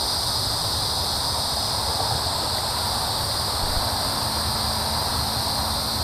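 Steady, unbroken insect chorus in the woods, a continuous high drone at an even level, with a low rumble underneath.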